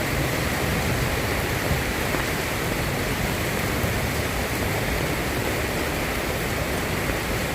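Steady rain falling, an even hiss with no separate drops or clicks standing out.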